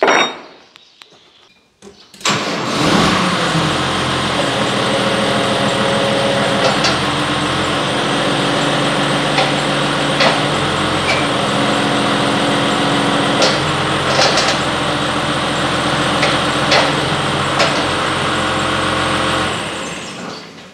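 Case IH Maxxum tractor's diesel engine cranked and started about two seconds in, then running steadily. Its note shifts several times as the loader's hydraulics are worked, run to the end stop to pressure-test the newly fitted multi-coupler for leaks. It dies away shortly before the end.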